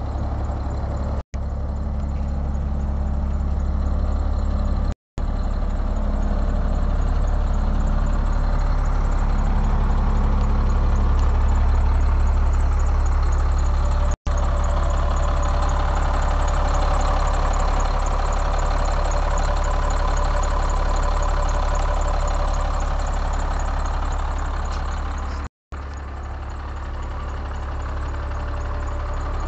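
Diesel engine of a Freightliner FL-80 medium-duty truck idling steadily, a little louder near the middle.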